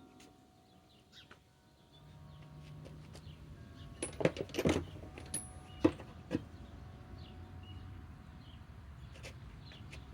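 A handful of sharp clicks and knocks, about halfway through, as sockets and tools are handled, over a low steady hum.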